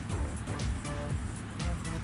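Background music with a pulsing low beat and short held notes.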